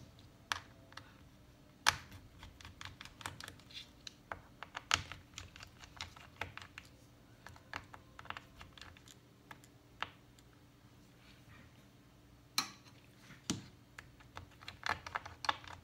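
Irregular light clicks and taps of small tools and parts being handled on an opened MacBook Pro A1502 laptop during disassembly, coming in clusters with a few sharper knocks.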